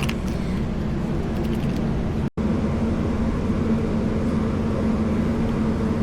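Steady low rumble of motor-vehicle noise with a steady hum, broken by a brief dropout about two seconds in.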